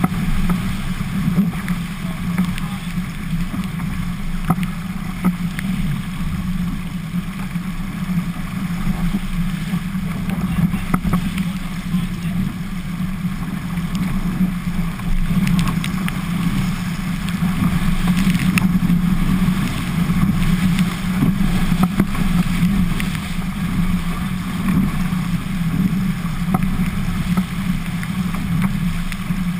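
Albacore sailing dinghy driving fast through choppy water in strong wind: a steady low rumble of wind and water rushing past the hull, with scattered small knocks and spray hits.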